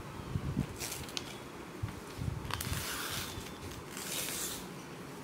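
Sheet of paper being slowly torn along a fold, in three short ripping stretches.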